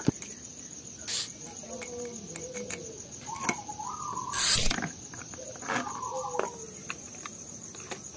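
Steady, high-pitched insect trilling, with light clicks of small metal parts being handled and a brief scrape about halfway through.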